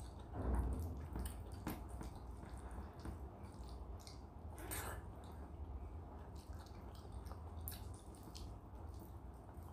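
Fingers squeezing and mixing rice with runny lentil dal by hand, making wet squelching with scattered small clicks, and eating noises as handfuls are taken to the mouth.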